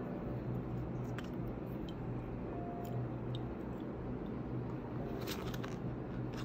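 Light handling noises of a glass perfume bottle being fitted into its cardboard presentation box: a few faint clicks and rustles, with a short cluster of them about five seconds in, over a steady low background hum.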